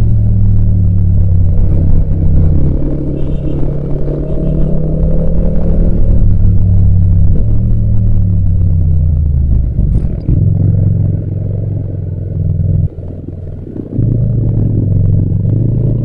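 Yamaha MT-07's 689 cc parallel-twin engine running while the bike is ridden, its note rising and falling with the throttle. Near the end the engine note drops away for about a second, then picks up again.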